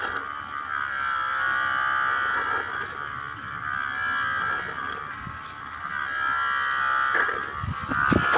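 Honey being sucked out of stingless bee (Trigona) honey pots through a clear plastic tube: a steady high whine of air and honey drawn through the tube, easing for a few seconds and strengthening again, with a few low bumps near the end.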